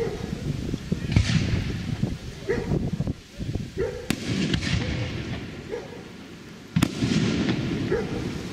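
Aerial fireworks shells bursting overhead: sharp bangs about four seconds in and again near seven seconds, with a continuous rumble of other explosions and their echoes.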